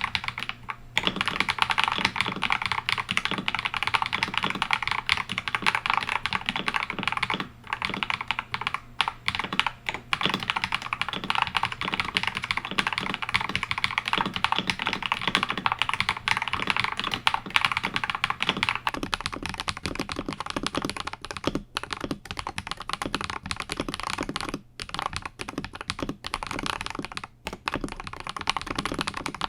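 Fast, continuous typing on an Akko 5075S mechanical keyboard with Krytox 205g0-lubed Akko Radiant Red linear switches on a polycarbonate plate, with a few brief pauses between bursts of keystrokes.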